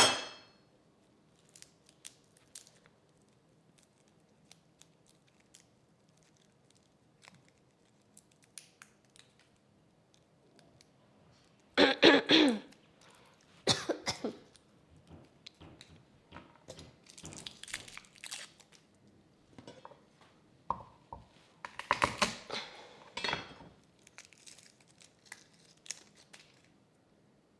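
Kitchen food-prep sounds: scattered light clicks and taps, a cough about twelve seconds in, then several short stretches of crinkling and crunching, loudest a little past twenty seconds in.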